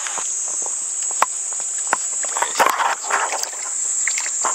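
Insects shrilling in one steady, unbroken high tone, with scattered splashes, clicks and knocks from live ayu in a wet mesh landing net being handled.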